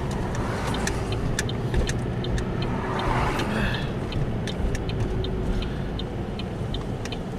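Car running on the road, heard from inside the cabin: a steady low rumble with light, irregular ticks and rattles over it.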